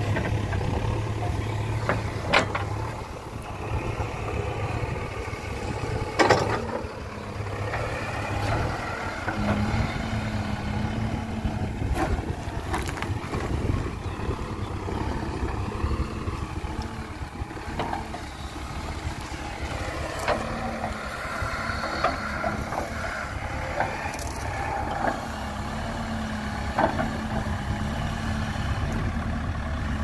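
JCB 3DX backhoe loader's diesel engine running under load while the backhoe bucket digs dry soil, its note rising and falling as the hydraulics work. A few sharp metallic clanks from the bucket and arm stand out above the engine.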